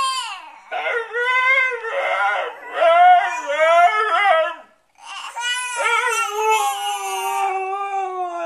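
Siberian husky howling and 'talking': a run of short warbling calls that rise and fall in pitch, a brief pause about five seconds in, then one long howl slowly falling in pitch.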